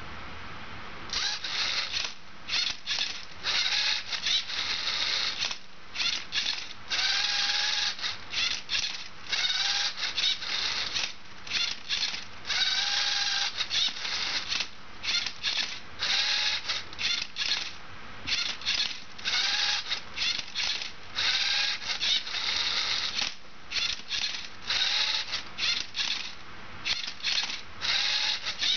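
LEGO Mindstorms MindCuber robot's geared motors whirring in quick stop-start bursts as the turntable turns and the arm flips a Rubik's cube. Some bursts carry a whine that rises and falls, and the run of moves starts about a second in.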